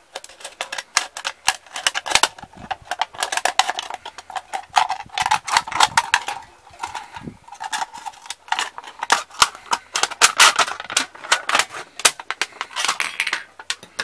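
Scissors cutting through the thin aluminium wall of a drink can: many irregular crisp snips and crackles of the sheet metal.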